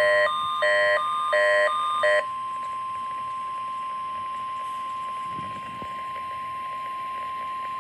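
NOAA Weather Radio warning alarm tone: a steady single-pitch tone of about 1,050 Hz. Over the first two seconds an electronic alert beeps along with it, about one beep every two-thirds of a second, then stops, leaving the steady tone alone.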